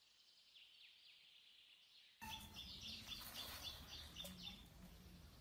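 Faint outdoor ambience with small birds chirping. About two seconds in, the background noise steps up abruptly and a quick run of sharp chirps follows for about two seconds.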